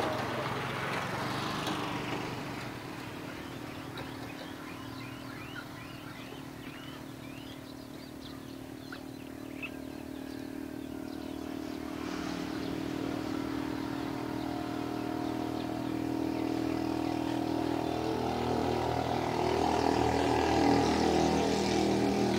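A motor vehicle's engine running at a steady pitch, growing louder through the second half. A few faint short high chirps sound in the first half.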